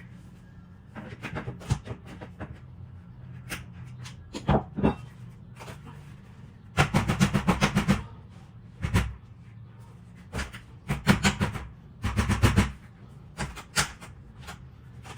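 Bursts of rapid knocking or clattering, the longest a fast run of about eight knocks a second, over a steady low hum.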